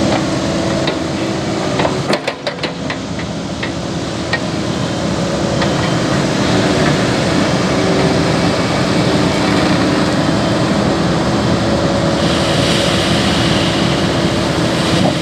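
Cat 308E mini excavator's diesel engine running steadily as it digs, with a quick run of sharp metallic clanks about two seconds in, scattered single knocks after, and a rush of hiss near the end.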